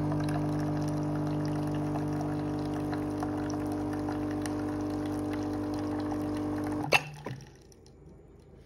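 Schaerer Coffee Club coffee machine running as it dispenses an Americano: a steady pump hum with coffee streaming into a glass. About seven seconds in it stops with a sharp click, leaving only a few drips from the spout.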